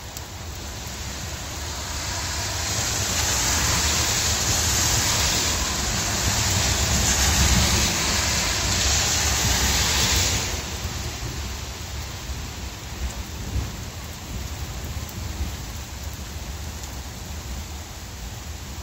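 Heavy rain falling on pavement and grass, a steady hiss over a low rumble. The downpour swells louder about two seconds in and eases suddenly about ten seconds in.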